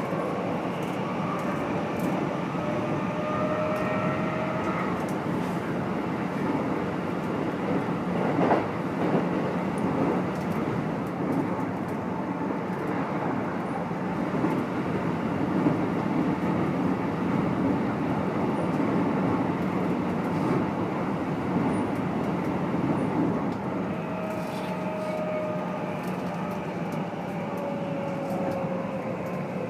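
Running noise inside a Keikyu New 1000 series motor car fitted with Toyo Denki IGBT VVVF inverter control and MB-5121-A traction motors, a set known for its unusually loud motor noise. The motor whine rises in pitch for the first few seconds, then gives way to steady rolling noise with rail-joint clicks. Near the end the whine returns, falling in pitch as the train slows.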